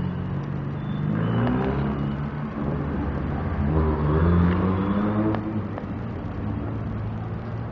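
An engine speeding up twice, its pitch rising each time, loudest about halfway through.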